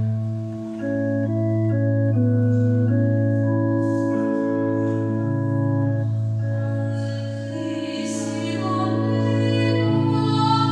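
Organ playing sustained chords over a held low bass note, with a soprano voice entering about two-thirds of the way through, singing with vibrato.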